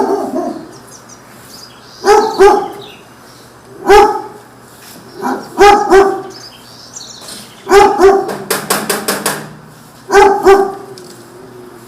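A dog barking repeatedly, mostly in quick doubled barks about every two seconds. A quick run of sharp clicks comes about two-thirds of the way through.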